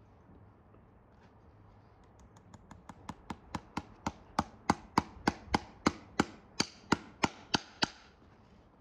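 Farrier's driving hammer striking a horseshoe nail to drive it through the shoe into the hoof wall. It starts with light taps, builds to sharp metallic blows at about three a second, and stops shortly before the end.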